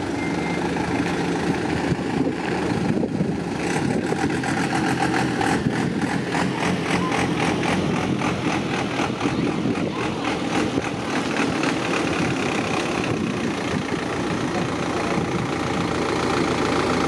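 Mitsubishi Rosa minibus engine running steadily at close range, with a fast, regular clatter through the middle stretch.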